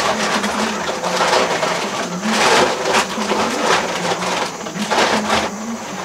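Grain feed being scooped out of a plastic barrel: bursts of rustling and rattling about a second apart, loudest a little past halfway. A faint, low, wavering tone runs underneath.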